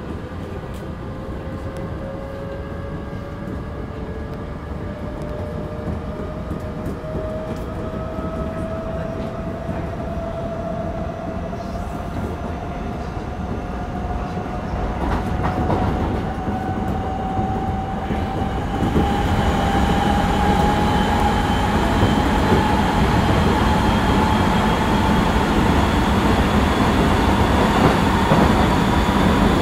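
Odakyu 1000-series electric train heard from inside the car. The traction motor whine rises slowly and steadily in pitch as the train gathers speed, over wheel and track rumble. The rumble grows louder about two-thirds of the way through.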